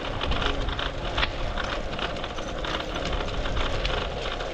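Brompton folding bicycle rolling along a gravel towpath: steady tyre crunch and a scatter of small rattles from the bike, over a low wind rumble on the microphone.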